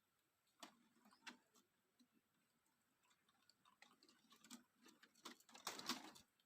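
Faint, irregular clicks and light taps, sparse at first and bunching into a louder cluster near the end.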